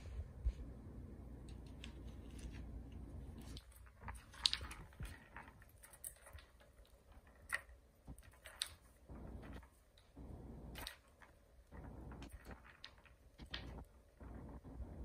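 A kitten playing on a wooden ball-track cat toy with a sisal scratching post: scattered, irregular light taps, clacks and scuffs as its paws and claws hit the wood and the track balls.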